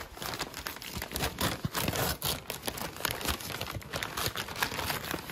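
Paper gift bag being handled and pulled open, its wrapping paper crinkling and rustling in a dense, irregular crackle.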